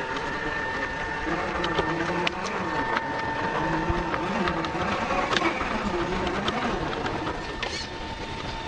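Electric motor and gearbox of a Traxxas TRX4 RC crawler whining steadily as it crawls over rocks, the motor's pitch rising and falling with the throttle, with scattered clicks and crunches of the tyres on stones.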